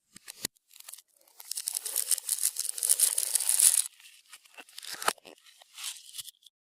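Crinkling, crackling handling noise, dense for a couple of seconds in the middle, with a few separate sharp clicks before and after.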